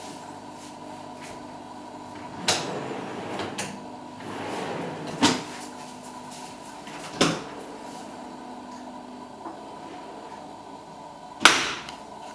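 Painted MDF kitchen cabinet doors on Blum hardware being opened and shut by hand, four knocks as they close, the loudest near the end, with a softer swish of a door swinging in between.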